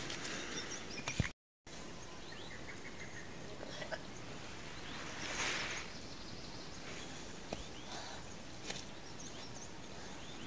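Steady outdoor background noise with faint small bird chirps scattered through it and a few sharp clicks. The sound cuts out completely for a moment about a second and a half in.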